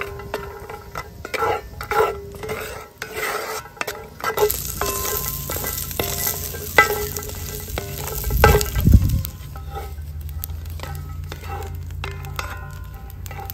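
Wooden spatula scraping and stirring coconut pieces in a cast-iron skillet, in many short strokes, while the coconut sizzles as it fries in oil over a wood fire. The sizzle is strongest in the middle, and a loud low thump comes about nine seconds in.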